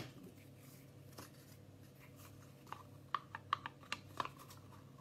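Mostly quiet room tone, then from about halfway through a quick run of light clicks and taps as a glue stick is picked up and uncapped.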